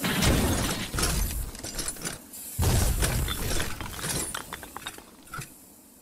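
Shattering crash, with a second heavy crash about two and a half seconds in, followed by scattered small clinks of falling pieces that die away near the end.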